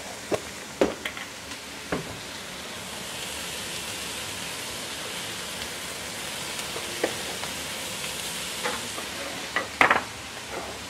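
Garlic chive flower stems sizzling steadily in a hot nonstick wok. A few sharp clicks and knocks of utensils come through, the loudest two close together near the end.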